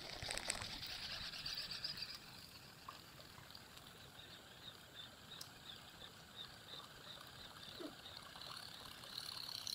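Steady high-pitched insect chirping, a little louder in the first two seconds and again near the end.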